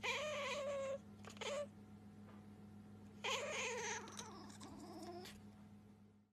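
Tabby-and-white cat meowing: a meow of about a second, a short one, then a longer wavering meow that sinks in pitch near its end, over a faint steady hum.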